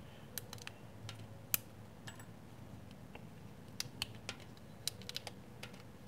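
Faint, irregular small clicks and ticks as the clamshell scale of an old stockman pocket knife is worked loose and pulled off its frame by hand, the sharpest click about a second and a half in.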